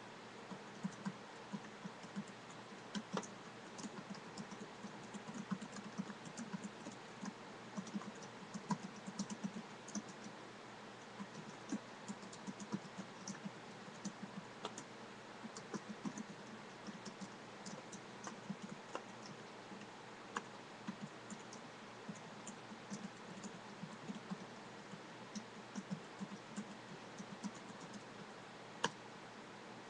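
Typing on a computer keyboard: a continuous, irregular run of keystroke clicks, a few struck harder than the rest, over a steady background hiss.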